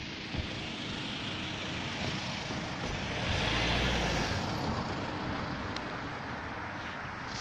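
A minivan driving past: its tyre and engine noise swells to a peak a little past the middle, then fades away as it drives off.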